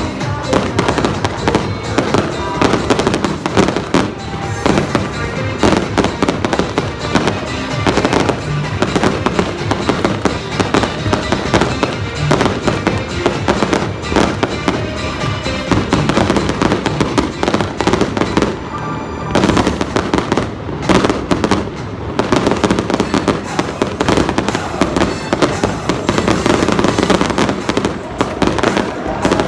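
Aerial fireworks display: a rapid, continuous barrage of shell bursts and crackling, with a brief lull a little past halfway before more heavy bursts. Loud music plays over stadium loudspeakers throughout.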